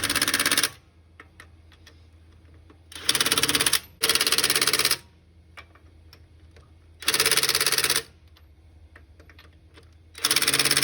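Electric 1/2-inch-drive impact wrench hammering in five short bursts, each under a second, spinning lug nuts onto the truck's wheel.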